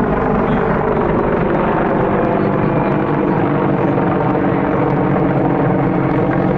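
A steady, loud engine-like drone with a constant pitch, unchanging throughout.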